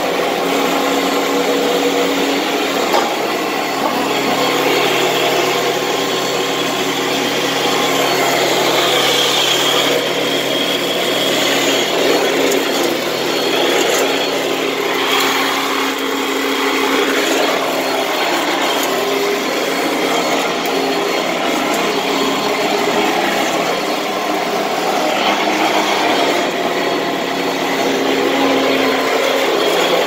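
Upright vacuum cleaner running loud and steady as it is pushed over carpet, vacuuming up dead cockroaches, with a steady motor hum under the rush of air and small swells as the head moves.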